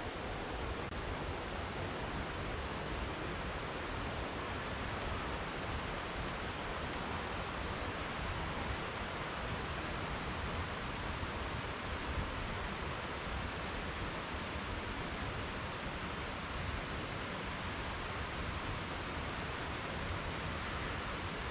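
Steady rushing of water falling over the cascades of Kuang Si waterfall, an even roar with a low rumble underneath.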